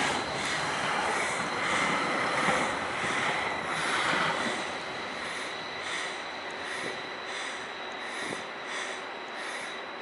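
Light rail tram passing on the Hudson-Bergen line, its steel wheels squealing faintly on the rails over a steady running rush. The sound is loudest in the first few seconds and then eases off as the tram moves away.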